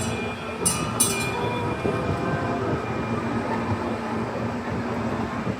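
Casey Jr. Circus Train rolling along its narrow-gauge track, heard from on board: a steady running rumble with two sharp clicks within the first second or so.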